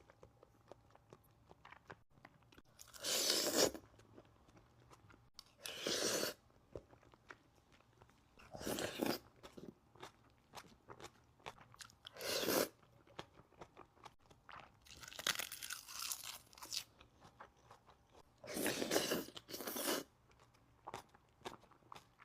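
Close-miked eating: about six loud crunching bites a few seconds apart, with quieter chewing and small mouth clicks between them.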